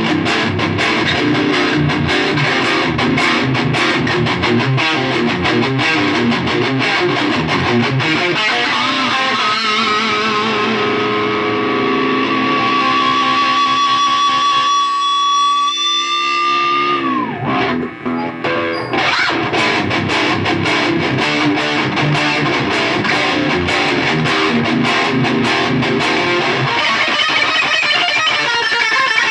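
Electric guitar with Seymour Duncan JB humbuckers played through heavy distortion: fast picked lead playing. A long held note with vibrato drops steeply in pitch about seventeen seconds in, and then fast picking resumes.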